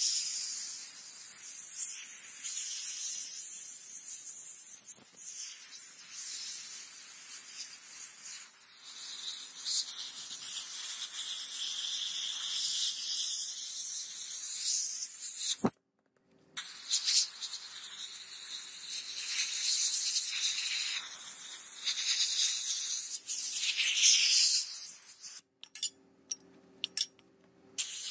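Sandblast gun blasting abrasive grit onto a rusty steel cleaver blade: a steady high hiss of air and sand. It cuts out briefly about halfway, and stops and starts several times near the end.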